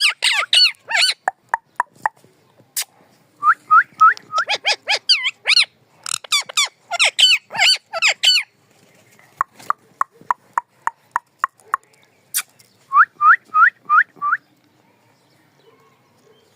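A green parrot calling in quick runs of short, shrill squawks and chirps. Near the end it gives five quick calls that each sweep upward.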